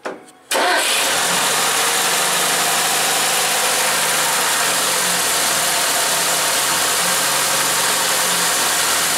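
A Lada VAZ-2101's rebuilt carburetted four-cylinder engine, its cylinders honed to a mirror finish, starts on the choke. It catches about half a second in and settles straight into a steady idle.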